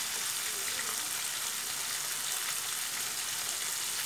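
Food frying in hot oil in a wok, an even, continuous sizzle.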